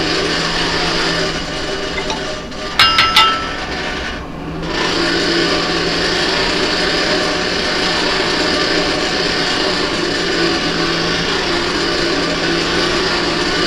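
Forge blower running steadily with a constant low hum and air rush. About three seconds in, a few quick ringing metal clanks as a hammer is set down on the anvil.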